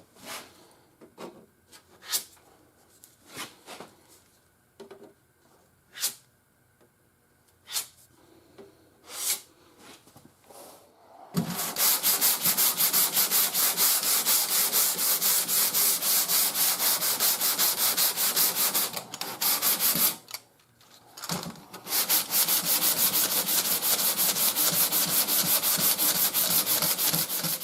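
Hand block sanding on an auto body panel: quick, even back-and-forth rasping strokes of sandpaper on a block, starting about a third of the way in, pausing briefly, then resuming. Before that come faint scattered scrapes and taps.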